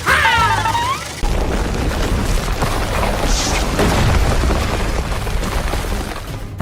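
A loud, heavy rumbling boom-like noise that starts about a second in, holds for about five seconds and cuts off suddenly near the end. A short high cartoon-style vocal squeal comes just before it.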